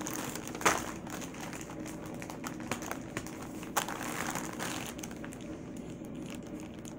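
Pink metallic foil balloon crinkling as it is handled and unfolded, with two sharper crackles, one a little under a second in and one near four seconds.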